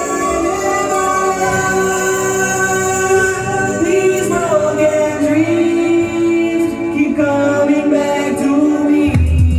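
Music with long held sung notes that glide from one note to the next and no beat. A heavy bass beat comes back in just before the end.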